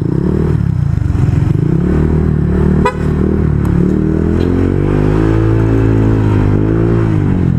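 Honda Click scooter's single-cylinder engine through a JVT V3 adjustable aftermarket exhaust set to its middle setting, pulling under acceleration. The engine note climbs for a few seconds, holds, then drops away near the end, with one sharp click about three seconds in.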